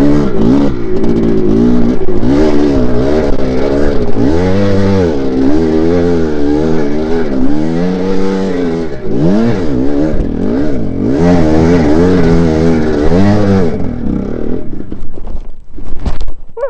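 1982 Maico 490 two-stroke single-cylinder dirt bike engine revved up and down over and over, the rider working the throttle hard on a muddy, slippery trail. About 14 seconds in the engine sound drops away.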